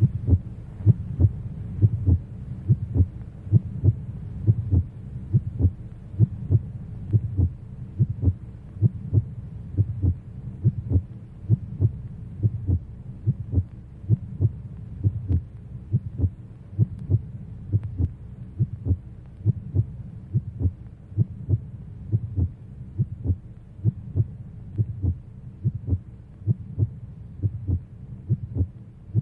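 A deep, regular thumping beat, about two thumps a second, over a low steady drone: a soundtrack pulse under title cards.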